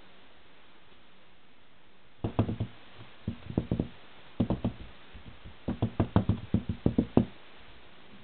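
Quick knocking or tapping in short clusters of three or four strikes, beginning about two seconds in, ending in a longer run of about ten strikes, then stopping.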